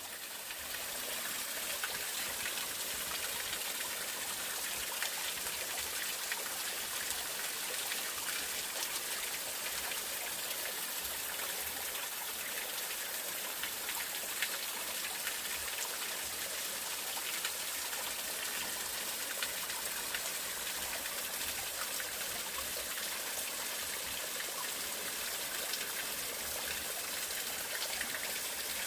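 Mountain valley stream flowing, a steady rush of running water with fine splashing, fading in over the first second or so.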